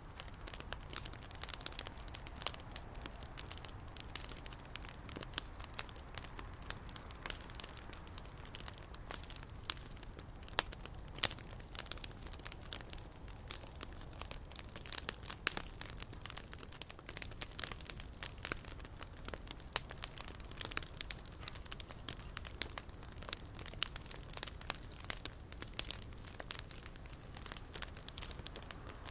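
Bonfire of a homemade effigy burning, crackling steadily with many irregular sharp pops and snaps over a low rumble.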